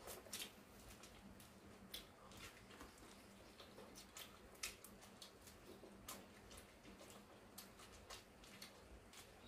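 Faint, irregular crisp clicks of kernels being bitten off freshly steamed corn on the cob, with soft chewing, a few clicks a second, the sharpest about four and a half seconds in.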